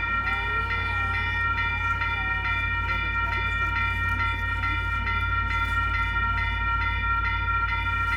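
Electronic railroad crossing bell ringing steadily at about two and a half strikes a second, over a steady low rumble.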